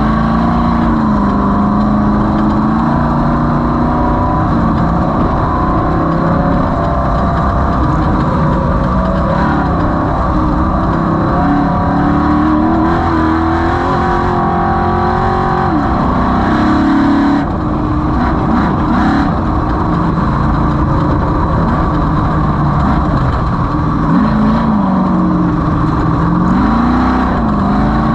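Off-road race vehicle's engine running hard, its pitch climbing slowly through the middle, dropping back, then falling and rising quickly twice near the end, over a constant loud rumble.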